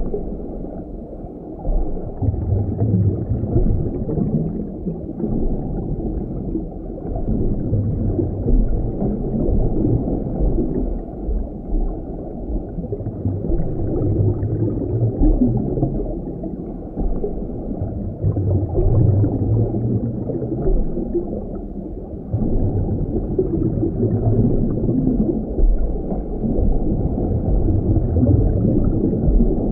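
Muffled underwater-style ambience: a steady low rumble with gurgling, with nothing in the upper range.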